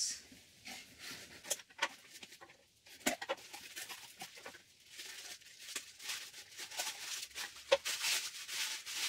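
Packing tape worked off a cardboard box and the flaps opened, with scattered sharp clicks and rustles, then tissue paper and plastic bubble wrap crinkling as they are pulled out near the end.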